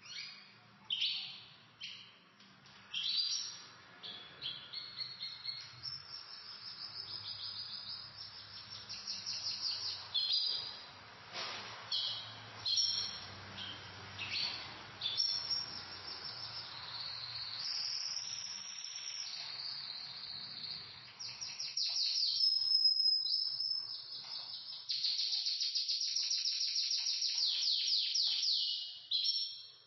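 Pet canaries singing: bursts of high chirps and long, rapid trills that grow louder and nearly continuous in the last third.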